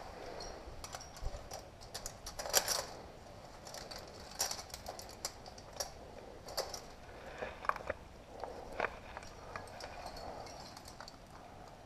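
Climbing gear clinking and rattling on a harness in irregular small metallic clicks, with scuffs of body and clothing against the rock as the climber squeezes through a tight chimney; a few louder clinks stand out.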